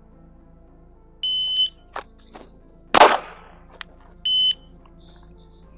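Shot-timer start beep, then about 1.7 s later a single 9mm pistol shot from a Glock 43X, the loudest sound, with a short echo. The timer's par beep follows three seconds after the start beep.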